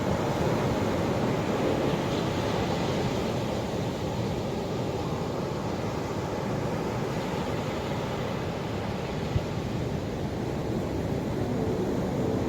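Ocean surf washing in a steady rush that swells and eases slowly, with some wind on the microphone. One brief click about nine seconds in.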